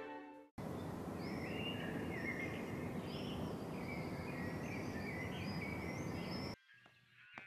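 Outdoor city ambience: a steady, even background hum with birds chirping over it. It starts about half a second in and cuts off abruptly near the end.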